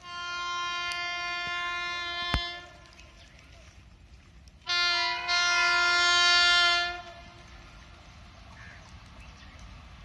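A WAP-5 electric locomotive's horn sounding two long blasts: the first about two and a half seconds long, the second about two seconds later and a little over two seconds long.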